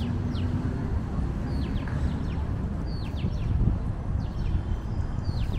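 Small birds chirping: short, high notes that fall in pitch, coming in little groups about every second or so, over a steady low rumble.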